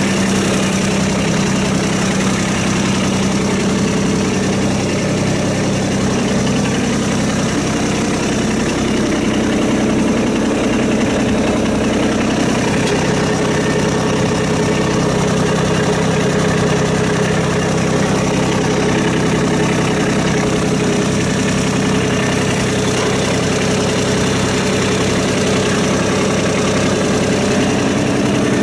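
2016 Kubota B26 tractor's three-cylinder diesel engine idling steadily.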